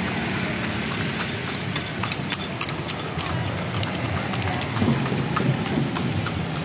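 Horse hooves clip-clopping on a paved road as a horse-drawn carriage passes, a run of sharp irregular clacks, over the steady hum of motorbike engines.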